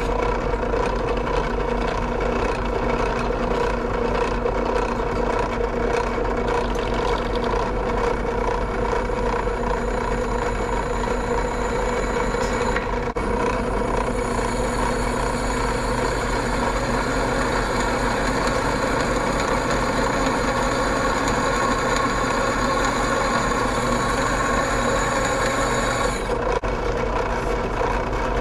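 Benchtop drill press running, its 4.6 mm twist bit grinding into rusty square steel tubing under hard feed pressure: a steady motor hum with the grinding of the cut. A thin, higher whine joins about halfway through and drops away near the end. The bit is probably pretty dull, so it cuts slowly.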